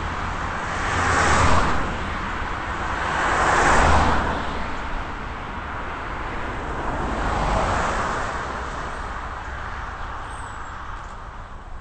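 Cars passing by one after another on a fast road, their tyre and engine noise swelling and fading three times: about a second and a half in, near four seconds, and near eight seconds.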